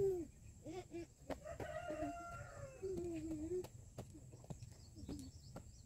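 A rooster crowing once, a long call starting a little over a second in and lasting about two seconds, with a few short calls around it. Scattered light knocks throughout, the hand tool chopping into soil.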